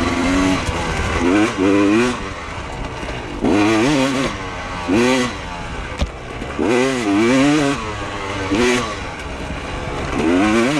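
Dirt bike engine revving in repeated surges of throttle as it climbs a steep trail, its pitch rising and falling about six or seven times. A sharp knock comes about six seconds in.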